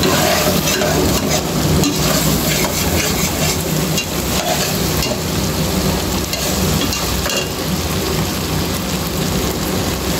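Chicken pieces frying in oil in a stainless steel pot, sizzling and crackling steadily while a metal slotted spatula stirs them. The water has cooked off, so the chicken is now frying in the leftover oil.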